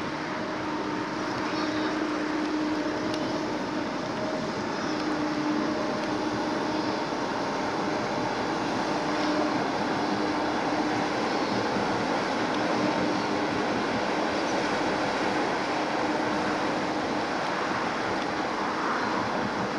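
Engine of a 1945 GMC DUKW amphibious truck, its GMC 270 straight-six, running steadily under way on water, a constant hum over a hiss of water churned up by the hull and propeller.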